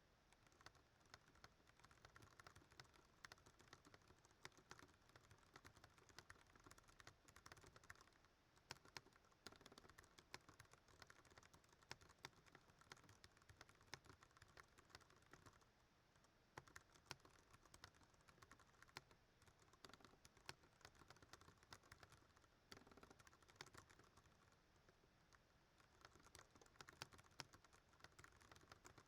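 Ducky One 2 Mini mechanical keyboard with Cherry MX Brown switches being typed on rapidly and without pause: a dense, continuous stream of faint key clacks.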